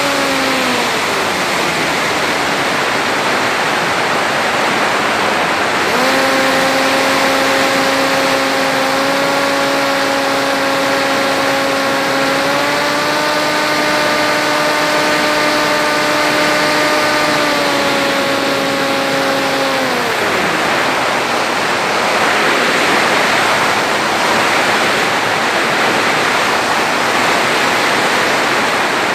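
Electric motor and pusher propeller of an FX-61 flying wing whining in flight, heard from the onboard camera under a steady rush of wind over the microphone. The whine winds down about a second in, comes back abruptly about six seconds in, rises twice in pitch, then winds down again past the middle, leaving only the wind of a glide.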